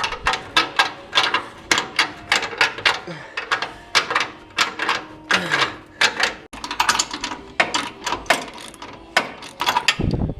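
Hand ratchet wrench clicking in quick repeated strokes as bolts are run in on a car's front subframe, with a low thump near the end.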